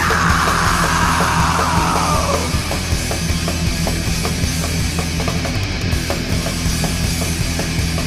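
Death/thrash metal band playing a distorted, heavy instrumental passage with guitars, bass and drums. A harsh, noisy sweep falls in pitch over the first two and a half seconds, then fast, even drum hits drive on.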